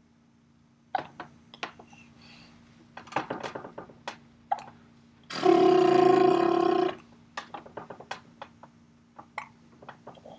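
Baby hiccuping in short, separate bursts among small mouth clicks, with one loud, steady-pitched vocal sound about a second and a half long midway.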